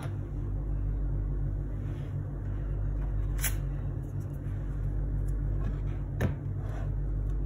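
A steady low hum with two sharp clicks, one about three and a half seconds in and one about six seconds in.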